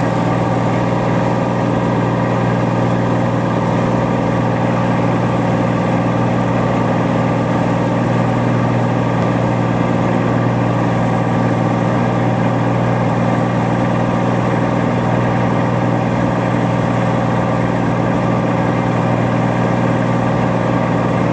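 Cessna 182T's six-cylinder Lycoming engine and propeller at climb power, a steady, even drone that holds at one pitch and level throughout.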